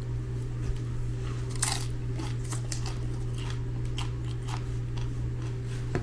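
Biting and chewing crispy-coated fried chicken: irregular crunches, the loudest about one and a half seconds in, over a steady low hum.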